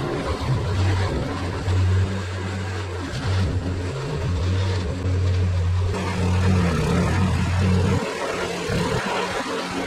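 Petrol walk-behind lawn mower's engine running steadily with a low, even hum while the mower cuts long, overgrown grass.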